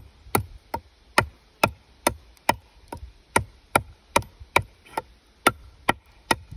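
Forged Kh12MF-steel hunting knife chopping into a wooden board over and over, a sharp chop about two and a half times a second, in an impact test of the blade.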